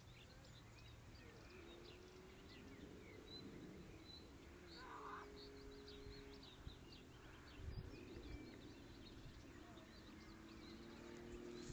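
Faint riverside ambience: small birds chirping sporadically over a low steady hum that drifts slightly in pitch.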